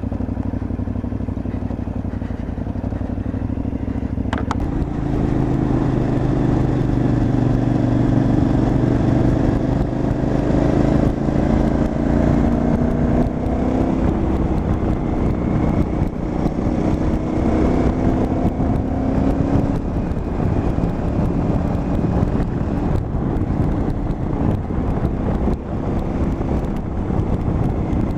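KTM 950 Adventure's V-twin engine running under way, its pitch rising and falling with the throttle, over a steady rush of wind and road noise. The sound changes abruptly about four and a half seconds in.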